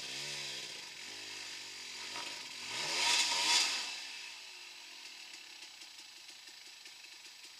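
Enduro dirt bike engine revving up and down as the bike climbs a rocky trail, loudest about three seconds in, then dropping back to a lower, steadier note.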